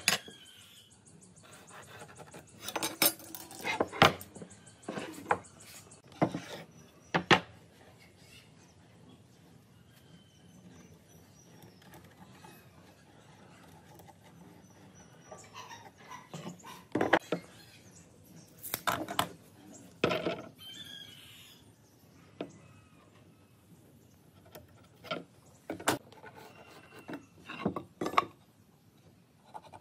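Metal speed square and pine boards being handled on a wooden workbench: scattered short wooden knocks and metallic clinks at irregular intervals, with quieter spells between.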